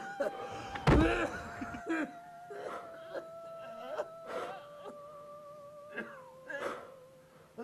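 A man sobbing and wailing in anguish, in short broken cries, over soft background music of long held notes that slowly sink in pitch. A low thump comes about a second in.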